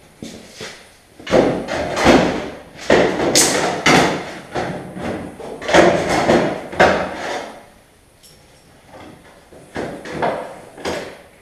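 Loose sheet-steel replacement quarter panel knocking and rattling against a 1974 Chevrolet Nova's body as it is offered up and fitted over the rear wheel opening. A run of loud, irregular knocks fills most of the first seven seconds, and a few more come near the end.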